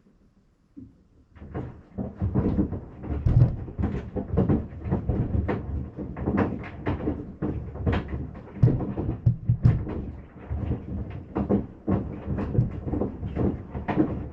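Sandals knocking irregularly against the inside of a Maytag washing machine as it runs, several dull thumps a second, starting about a second in.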